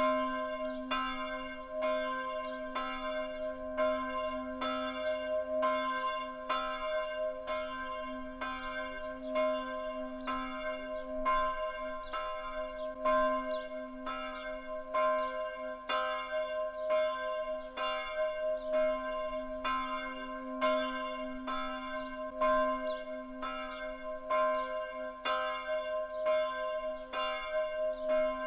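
Bells ringing in a steady rhythm, about two strokes a second, their ringing overlapping into a continuous hum.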